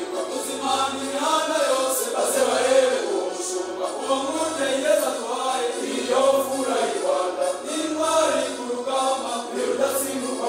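Male choir of seminarians singing a song together.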